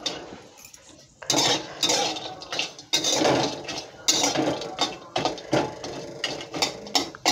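Metal spatula scraping and clinking against a steel kadhai as it stirs pieces of cinnamon bark roasting in a little oil. The scrapes come in quick, irregular strokes from about a second in.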